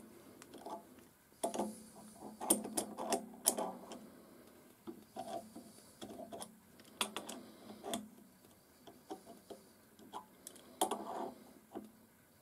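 Irregular metal clicks and knocks of an adjustable wrench working a nut on a steel lathe tool post stud, the wrench refitted on the nut and swung in short turns.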